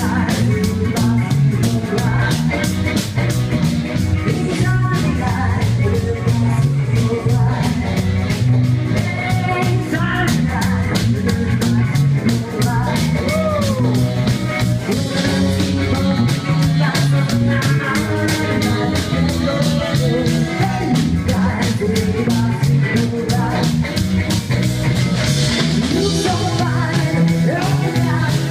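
Rock band playing live, with electric guitar and a steady drum beat; a voice sings at times.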